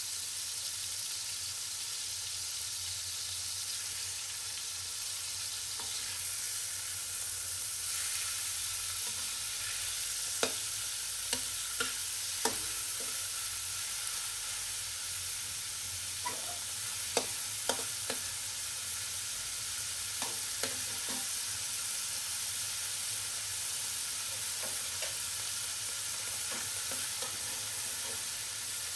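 Minced pork sizzling in hot oil in a wok. From about a third of the way in, a metal spatula scrapes and clacks against the wok as it stirs and breaks up the meat, in a string of sharp clicks that thins out toward the end.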